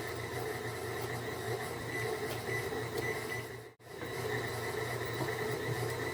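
Electric stand mixer running steadily on high speed, beating egg whites and powdered sugar into icing. The hum cuts out for a moment a little after the middle, then carries on unchanged.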